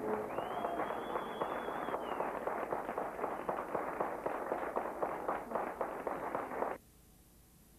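Theatre audience clapping, dense and irregular, with a faint high whistle in about the first two seconds; the clapping cuts off suddenly near the end.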